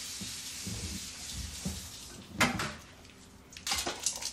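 A metal spoon knocking against a seasoning jar and bowl while jerk seasoning is scooped out: one sharp knock about halfway through, then a quick run of knocks near the end, over a faint hiss.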